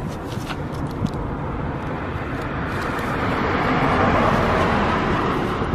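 A vehicle passing: a rushing noise that swells to a peak about four seconds in, then drops away near the end.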